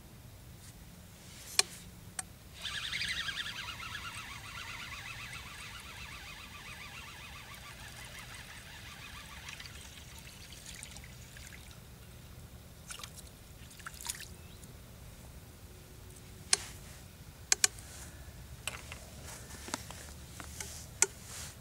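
A small fish splashing and skittering across the water surface as it is reeled in on a feeder rod, loudest at first and fading over several seconds, followed by scattered sharp clicks and taps of tackle handling.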